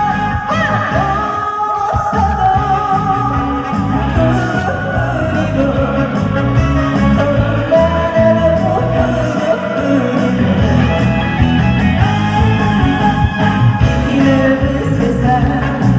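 A woman singing a song live over a loud backing track with a steady beat.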